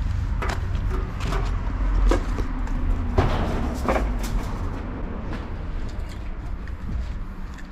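Footsteps in rubber slides on dirt and rubble, a short knock about once a second, over a steady low rumble.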